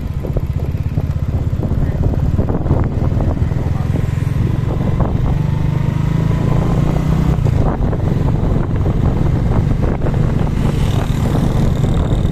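Motorcycle engine running steadily while being ridden, with scattered knocks and rattles.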